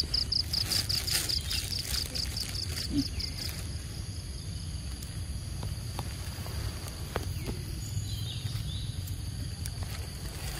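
Insects chirping: a fast, high pulsed chirp at about five or six pulses a second that stops about three and a half seconds in, over a steady high insect drone, with a low rumble underneath.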